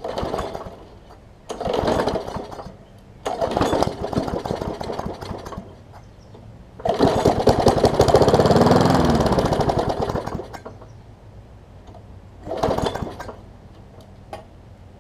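Single-cylinder Briggs & Stratton Classic push-mower engine being pull-started on starting fluid: it sputters on several rope pulls, runs on its own for about three seconds, then dies. One more short pull comes near the end.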